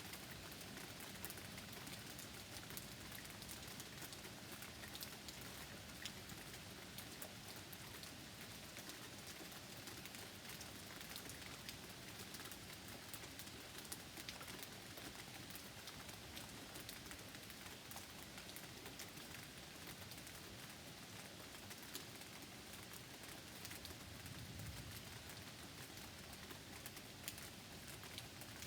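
Rain falling in a thunderstorm: a soft steady hiss dotted with many small drop ticks, with a brief low rumble near the end.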